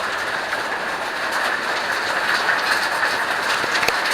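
Steady rush of running water, with a few faint sharp ticks over it.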